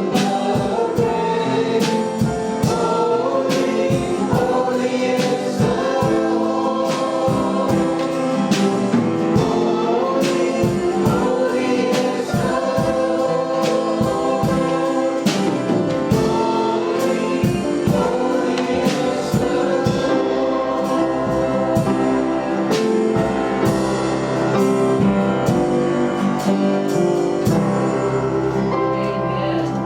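Gospel-style worship song sung by a group of voices with band accompaniment and a steady beat, fading slightly at the end.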